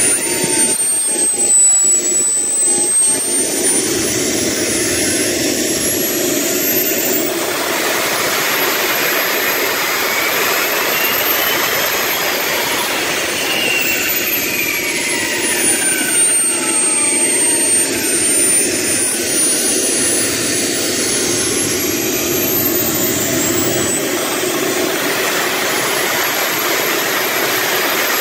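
Small gas-turbine engine of a Y2K turbine mini bike running under way, a loud steady jet rush with a high whine that falls and rises in pitch several times.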